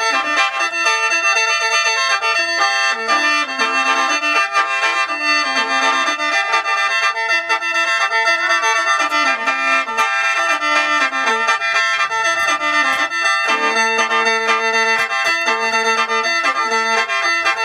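Instrumental background music: a melody moving over steady held drone tones.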